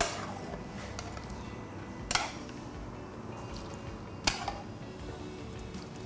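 Metal ladle scooping chicken broth from a plastic tray and pouring it into a stainless steel mixing bowl: a few brief clinks and splashes about two seconds apart.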